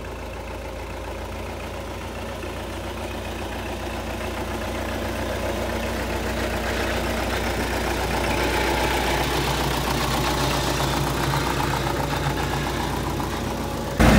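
An engine running steadily, slowly getting louder.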